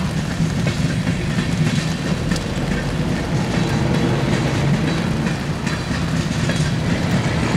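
Covered hopper cars of a freight grain train rolling past, steel wheels on the rails making a steady rumble with scattered faint clicks.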